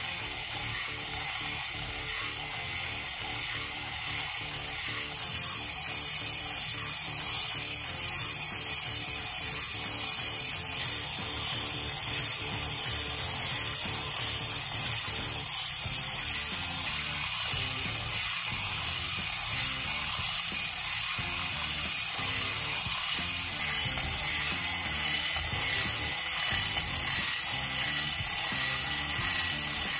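TECHING full-metal V8 engine model running: its timing chains, gears, belts and pistons turning with a steady, fine mechanical rattle. It gets somewhat louder a little past the middle.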